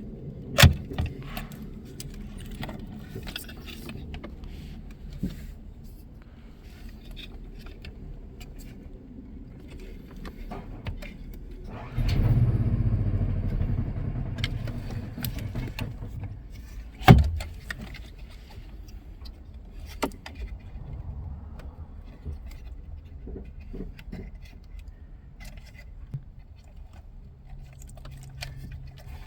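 Plastic wiring-harness connectors being released and pulled from the back of a car's factory radio and climate control module: sharp plastic clicks, the loudest near the start and about 17 seconds in, with rattling of wires and plastic, and a louder rustling scrape starting suddenly about 12 seconds in.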